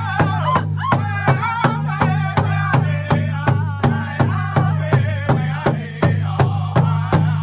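Powwow drum group striking a large shared hand drum in unison, a steady beat of about three strokes a second, while the singers sing together over it.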